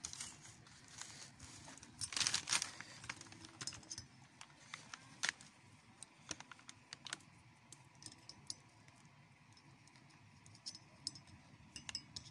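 Light, irregular metallic clicks and taps of hand tools against an alternator rotor's claw poles and coil wire as the broken field-coil wire is pushed into place, with a short burst of rattling clicks about two seconds in the loudest.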